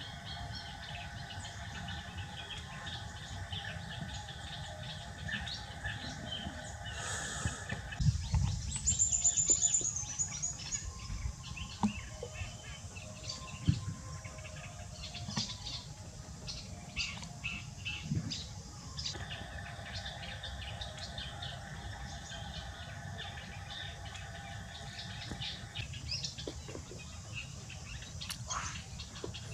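Birds chirping over and over against a steady hum, which stops about eight seconds in and comes back for a stretch later. A brief low rumble, the loudest sound, comes about eight to ten seconds in.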